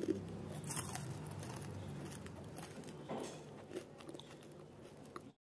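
Someone biting and chewing crunchy jaggery-coated makhana chikki balls: irregular crisp crunches over a low steady hum, cutting off abruptly near the end.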